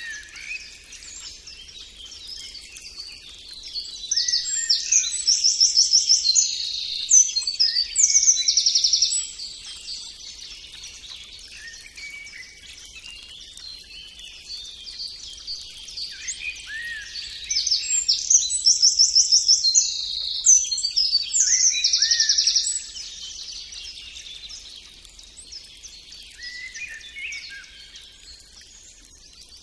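Several songbirds singing together in a steady chorus of chirps and whistles. Twice there is a loud stretch of fast, rapidly repeated trilled song, about four seconds in and again near the middle.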